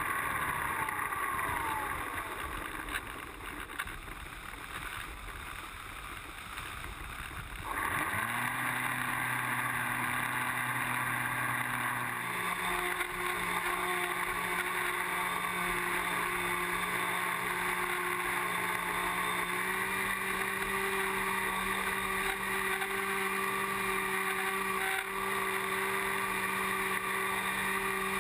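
Brushless outrunner electric motor (Exceed RC Rocket 3015-1200kv) turning a 9x4.5 APC propeller, heard with wind noise on the wing-mounted camera. It is throttled back for the first several seconds, pitch falling, then throttled up about eight seconds in to a steady whine that steps slightly higher twice.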